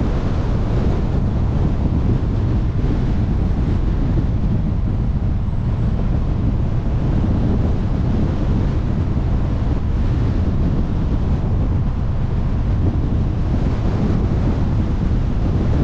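Steady wind rush on the microphone over the low rumble of a car driving along a road.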